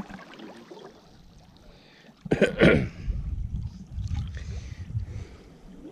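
A man gives one loud, rough cough about two seconds in, over the low slosh of water around men wading.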